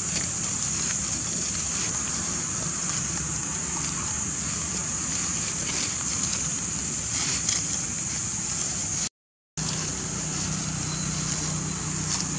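Steady outdoor background noise: a constant high-pitched hiss with a faint low hum underneath, cut by a brief dropout to silence about nine seconds in.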